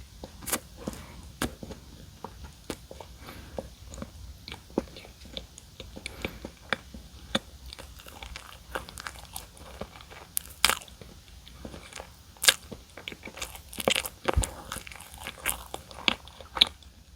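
Close-miked eating of donuts: steady chewing with irregular crisp crunches and sharp wet mouth clicks, a few louder crunches past the middle.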